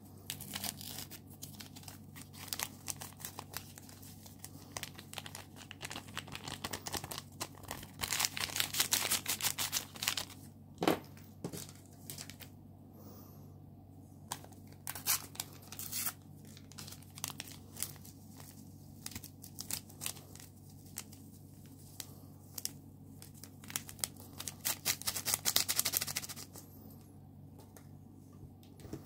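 Small paper packets of baking powder and vanilla sugar being crinkled, torn open and shaken out over flour, in bursts of crackling and rustling that are densest about eight seconds in and again around twenty-five seconds.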